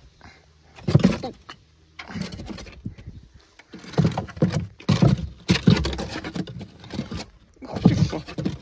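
Rabbits scrabbling and thumping on the wooden floorboards of a hutch while being grabbed by hand, in several irregular bursts of knocks and scratching.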